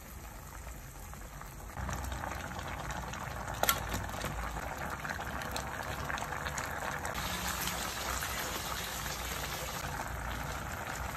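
Crabs in coconut milk simmering in a pot, a steady bubbling that grows louder about two seconds in. A single sharp tap comes about four seconds in.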